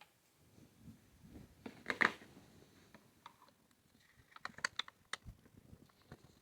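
Phillips screwdriver working screws out of an old Black & Decker 7504 jigsaw's plastic housing: light metal-on-plastic clicks, with a short scraping rattle about two seconds in and a quick run of clicks near the end.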